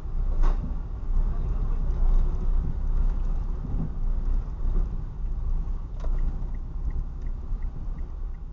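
Steady low engine and road rumble inside the cabin of a Mitsubishi Mirage driving along a town street. Near the end a light, regular ticking at about three a second comes in.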